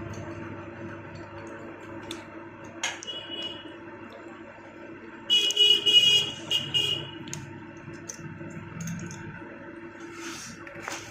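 A vehicle horn honks in several short blasts about five to seven seconds in, over a steady mechanical drone.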